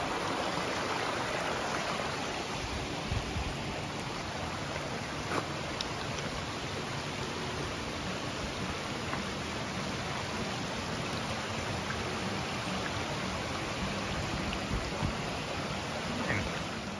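Small rocky forest creek rushing over stones and little cascades: a steady, even rush of running water.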